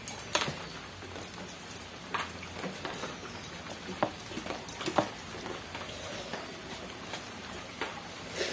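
Eating by hand: fingers mixing rice and dal on a steel plate, and chewing. A handful of short soft clicks and smacks are scattered through, over a steady faint hiss.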